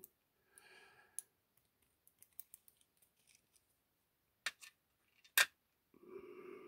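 Small metallic clicks and light scraping of a brass lock cylinder being handled as its picked plug is pushed out of the housing with a plug follower, with a sharp click about five seconds in, the loudest sound.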